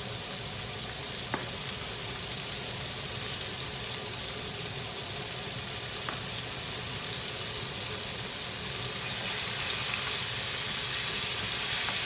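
Diced tomatoes sizzling in hot oil with sautéed ginger, garlic and onion in a frying pan on a gas burner, growing louder about three-quarters of the way through. Two faint light clicks, one about a second in and one near the middle.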